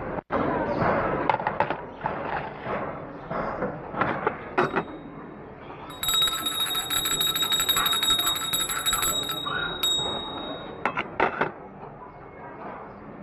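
A small bell rung rapidly for about three and a half seconds, starting about six seconds in, with scattered knocks and clatter before and after it.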